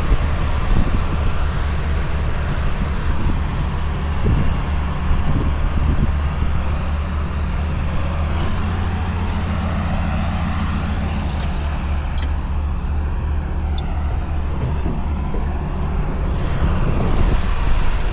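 A vehicle engine running steadily at an even speed: a continuous low drone with noise over it, holding level throughout.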